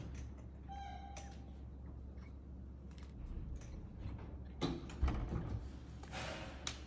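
A baby monkey whimpering: a short, clear, high-pitched cry about a second in, then more squealing cries with a few soft bumps later on.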